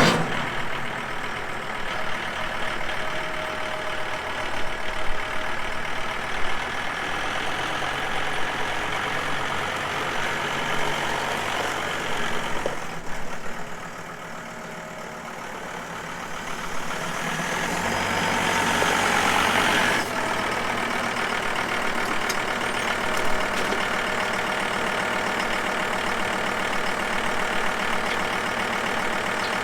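Two-wheel-drive John Deere tractor's diesel engine running steadily. It drops quieter about 13 seconds in, swells louder from about 17 to 20 seconds, then changes abruptly back to steady running.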